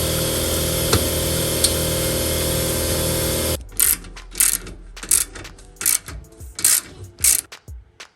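Power drill running steadily as it drives sheet-metal screws into the car body, then stopping abruptly about three and a half seconds in. A series of short, sharp clicking bursts about every half second follows.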